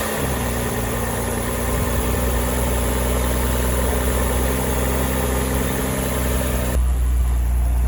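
2009 BMW 328i's 3.0-litre inline-six idling steadily just after a start, with a loud rushing air noise over it from the air pump that cuts off near the end while the engine keeps running.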